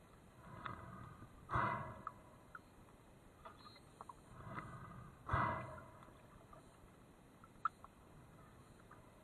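A diver breathing underwater, heard twice about four seconds apart: each breath is a softer draw followed by a louder, sudden burst of exhaled air that fades over about half a second.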